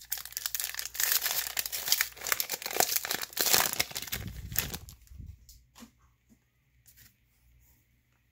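A shiny foil baseball-card pack wrapper being torn open and crinkled, with dense crackling for about four and a half seconds. After that it goes quiet apart from a few faint ticks as the cards are pulled out.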